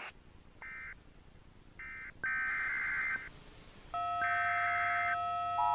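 Emergency Alert System digital data tones: four short bursts of screeching modem-like tone, the last two longer, marking the end of the alert message and the start of a new alert cycle. From about four seconds in, a steady synthesized tone sounds beneath them.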